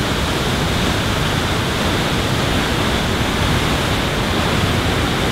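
Nairn Falls crashing through a narrow rock gorge: a loud, steady rush of falling white water.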